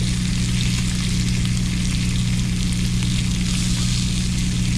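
Thick bacon slabs sizzling steadily in a cast iron skillet, with a steady low hum underneath.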